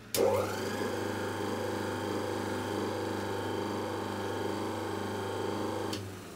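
Vintage electric motor from a power hacksaw switched on with a click. It spins up within about half a second to a steady hum with a high whine, its first run after the brushes were refitted. Near the end it is switched off and starts to wind down with a falling whine.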